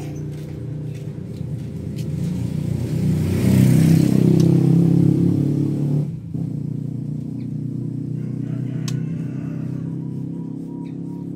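An engine running steadily with a low hum, swelling louder about three to five seconds in, dipping sharply about six seconds in, then running on.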